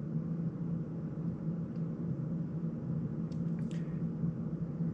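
Steady low room hum, with two faint short clicks about three and a half seconds in.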